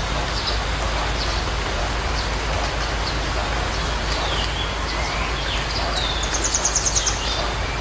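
Birds chirping on and off over a steady outdoor hiss, with one rapid high trill a little over six seconds in.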